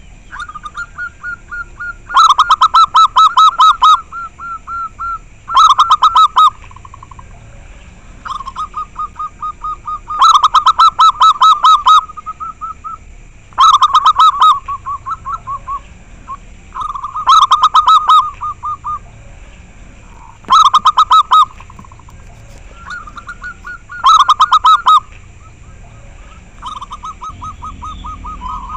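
Zebra dove (perkutut) cooing in loud, clear phrases of rapid repeated coo notes, each phrase a second or two long. There are seven loud phrases, with quieter, softer cooing phrases between them.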